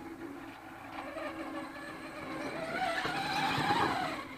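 Traxxas Slash RC truck on oversized monster truck tires accelerating: its electric motor and drivetrain whine rises in pitch and grows louder over the second half, then cuts off suddenly.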